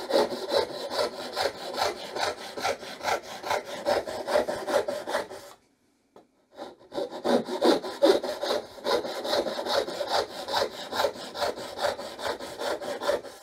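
Dovetail saw, freshly re-toothed to 12 teeth per inch with no set and no final sharpening, cutting into a piece of wood with quick back-and-forth strokes. The sawing stops for about a second near the middle, then starts again.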